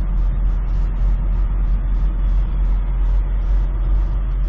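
Semi truck's diesel engine running, a steady low rumble.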